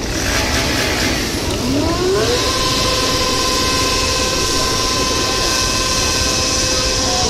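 A crowd of motorcycle engines running together. About two seconds in, a siren-like tone rises, holds one steady pitch for about five seconds, then starts to fall away at the very end.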